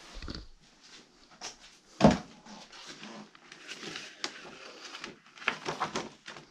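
Papers and cardboard rustling and shuffling as loose sheets are dug through and lifted from a pile. A single sharp thump comes about two seconds in, and a burst of rustling and clatter near the end.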